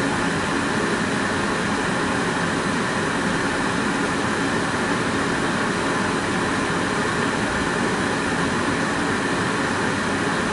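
Dometic RV furnace blower fan running steadily, an even rush of air with a faint hum; with the sail switch closed the furnace runs and puts out heat.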